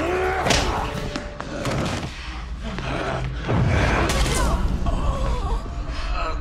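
Film fight sound effects: several heavy thuds and blows, the biggest about three and a half seconds in, with men's strained grunts, over a dramatic music score.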